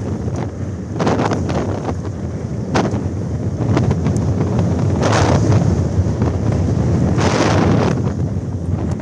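Hurricane-force wind buffeting the microphone in a loud low rumble, with gusts surging every couple of seconds and a few sharp knocks.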